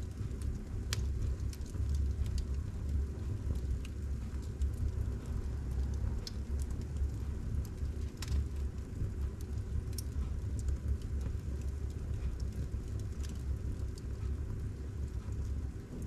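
Fire burning in a fireplace: a steady low rumble of flame with a few sharp crackles scattered through it.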